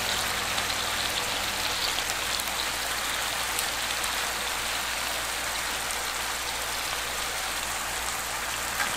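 Chicken thigh pieces and sliced sweet potato frying in olive oil in a frying pan: a steady sizzle with occasional small pops.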